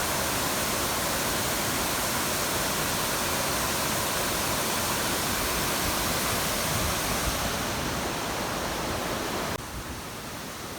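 Steady, even rushing noise that cuts off abruptly near the end, leaving a quieter hiss.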